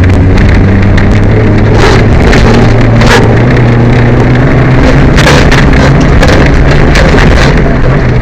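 Peugeot 205 rally car's engine, heard very loud from inside the car, running hard under load at a steady drone that steps up a little in pitch a couple of seconds in. Short rattling crackles cut through it a few times. The title calls the engine misfiring.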